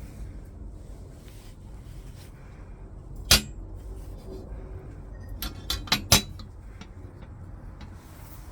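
A sharp knock, then a quick run of four knocks and clinks a couple of seconds later, like hard objects being handled, over a low steady rumble.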